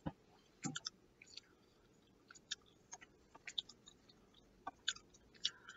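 A person chewing a gummy fruit snack: faint, irregular mouth clicks.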